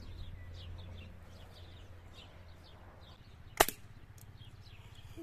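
A single sharp rifle shot about three and a half seconds in, fired at a bottle target, over birds chirping steadily in the background.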